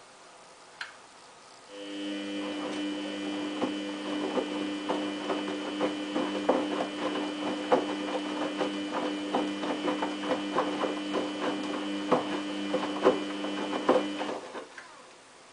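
Samsung WF8804RPA washing machine drum turning in the main wash at about 50 rpm: a click, then the motor starts with a steady whine while the dog covers tumble with irregular knocks, and it stops about a second before the end.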